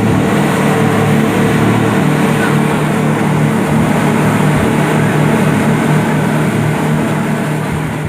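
Motorboat engine running steadily under way, with a wash of water and wind noise over it.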